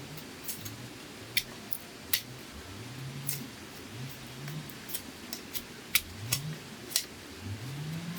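Irregular sharp clicks and snaps of bamboo being handled and cut. Under them, a low hum rises in pitch again and again, like a distant engine revving.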